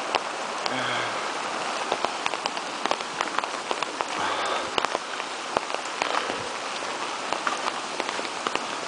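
Raindrops tapping on an umbrella: many sharp, irregular ticks over a steady hiss of rain and rushing creek water.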